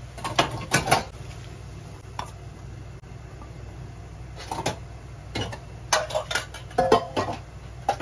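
Metal cooking utensil clinking and knocking against a hammered yukihira saucepan of boiling water, in short clusters of taps with a few ringing strikes, over a steady low hum.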